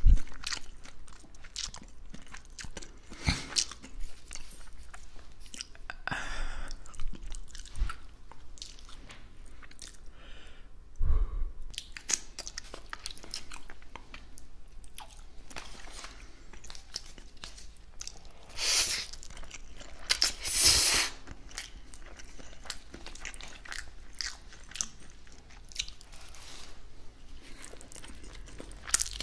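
Close-miked chewing of spaghetti, wet mouth sounds picked up on a binaural microphone right at the mouth. Several louder bites stand out now and then.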